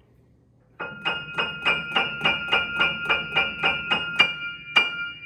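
Piano in its high register striking the same bell-like note over and over, evenly, about three to four times a second, then one last accented stroke that is left ringing.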